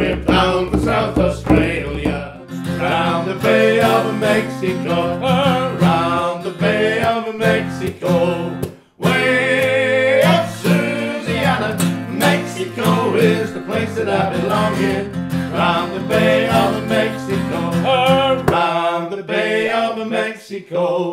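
Male voices singing a sea shanty in harmony to an acoustic guitar, with frame drums beating in the first couple of seconds. The music breaks off briefly about nine seconds in, then goes on.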